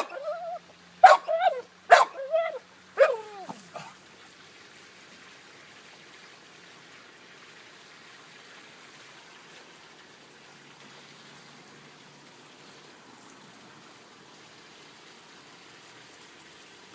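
A dog barking and yelping about four times in quick succession, the last call sliding down in pitch, then only faint background noise for the rest of the time.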